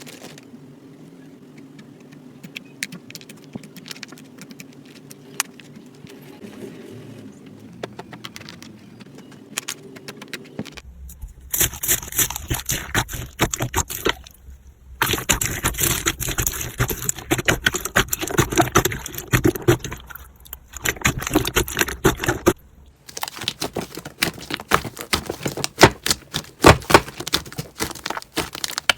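Slime being squeezed and pressed by hand, making dense crackling and clicking, in several stretches with short breaks between them. It is quieter at first, with scattered clicks over a low hum.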